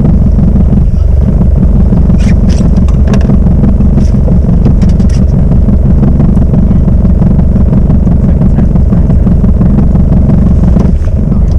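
Outboard motor running steadily, a loud, even low drone, with a few light clicks and rattles over it a couple of seconds in.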